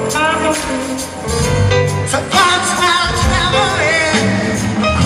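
Live rock band playing with singing, recorded from the audience: drums, bass, electric guitars and keyboards. The band gets fuller and louder about a second and a half in.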